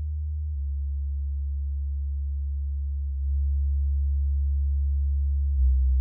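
Low sine-wave bass test tones at 75 Hz and then 65 Hz, played through Klipsch R-15PM and Edifier S2000 Pro powered bookshelf speakers and recorded in the room. The steady low hum changes slightly in level about half a second in, about three seconds in and near the end, as playback switches between speakers and frequencies.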